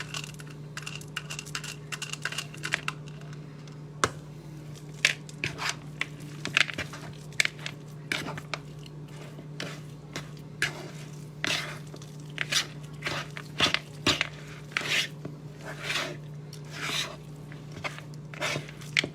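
A spoon clicking and scraping against a bowl as chocolate, mashed banana and oats are mixed, in irregular strokes that turn into longer scrapes about halfway through. A steady low hum runs underneath.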